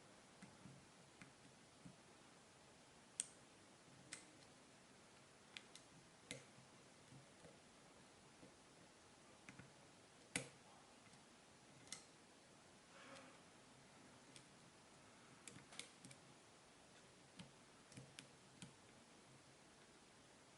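Faint, irregular clicks and ticks of a lock pick and tension tool working the pins of a half euro cylinder lock, a click every second or two with short gaps between.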